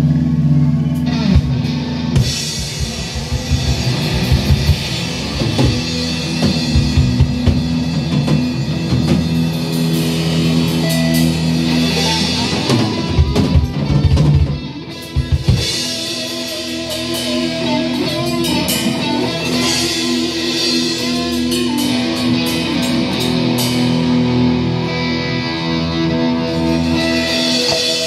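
A live rock band, two electric guitars, electric bass and drum kit, plays an instrumental passage. There is a brief break about halfway through, after which the guitars and bass ring on with lighter drumming.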